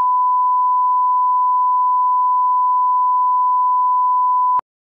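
Steady 1 kHz line-up test tone accompanying SMPTE colour bars, a single unwavering beep that cuts off abruptly with a click near the end.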